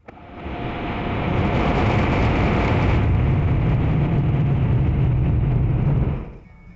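Automatic car wash machinery working over the car, heard from inside the cabin through the dashcam microphone: a loud, steady rush with a low rumble that builds over the first second and cuts off sharply about six seconds in.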